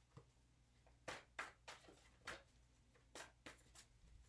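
A tarot deck being shuffled by hand: faint, short swishes of cards sliding over one another, about eight strokes in uneven groups.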